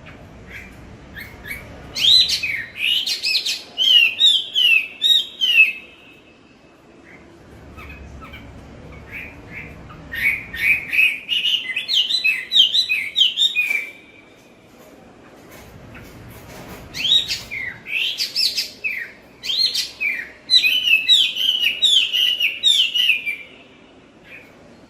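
A wambi bird singing three phrases of quick, sweeping chirps, each lasting several seconds, with short pauses between them.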